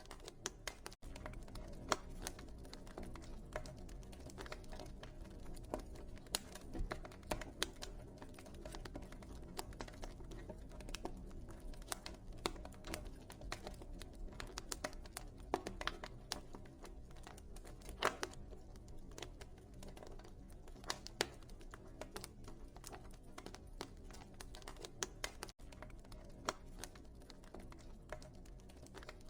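Wood fire burning in a fireplace: a steady low rush of flames with frequent irregular crackles and sharper pops from the burning logs.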